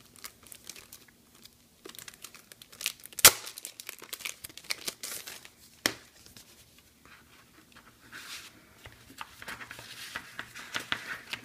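Plastic sleeves and a kraft paper folder rustling and crinkling as they are handled and slid into a leather passport-size notebook cover, with scattered sharp taps; the loudest tap comes about three seconds in. The rustling grows denser near the end.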